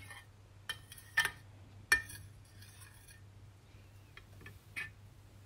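Metal spoon stirring melted oils and butters in a small stainless steel pot, clinking against the pot's side and bottom: a few sharp clinks in the first two seconds, strongest about two seconds in, and lighter ones near the end.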